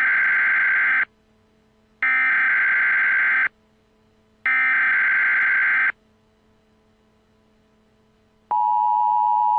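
Emergency Alert System broadcast tones for a National Weather Service hurricane warning: three bursts of the digital SAME header, each about a second and a half long with short gaps between them, then the steady two-tone attention signal starting about a second before the end.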